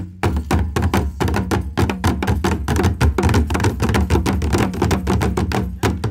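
Traditional Rwandan ingoma drums, tall hide-headed wooden drums, beaten with wooden sticks by a drumming ensemble in a fast, even rhythm of sharp strokes.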